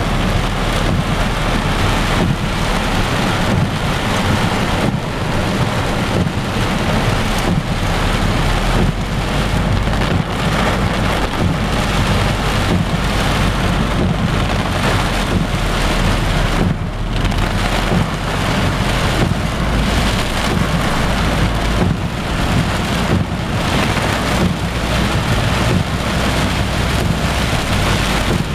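Heavy rain drumming on a car's roof and windscreen, heard from inside the car, with a steady low rumble underneath.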